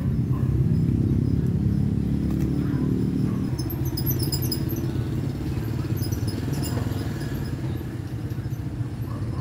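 Steady low rumble of a motor running, with a few faint high squeaks about four and again about seven seconds in.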